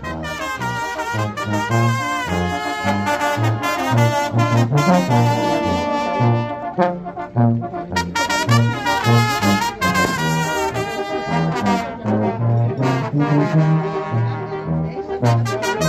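Live brass band playing a dance tune: a horn melody over a bass line of short, separate sousaphone notes, with drum hits.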